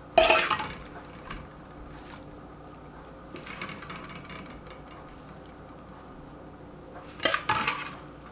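Stainless steel salad bowl clinking and clattering as dressed salad leaves are tipped out onto a plate: a sharp clatter just after the start, a soft rustle of leaves in the middle, and two quick clinks near the end.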